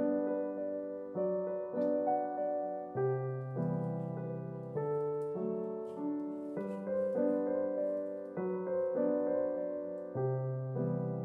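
Background piano music: a solo piano playing a melody over chords, with a new note or chord struck about every second.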